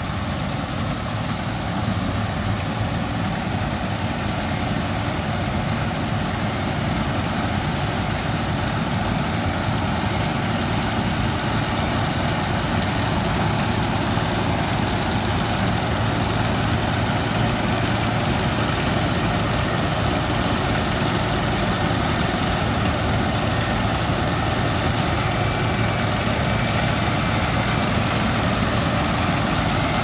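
Combine harvester running while it cuts rice: a steady drone of diesel engine and threshing machinery that gets a little louder over the first couple of seconds as the machine comes closer, then holds steady.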